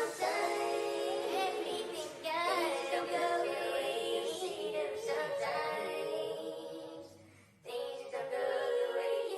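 Background music with a singing voice carrying the melody. The music cuts out briefly about seven seconds in, then picks up again.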